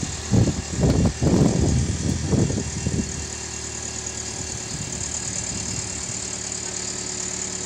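The lifting crane's motor runs with a steady hum as the boat's engine hangs from its chains. Irregular low rumbles come in over the first three seconds, then die away.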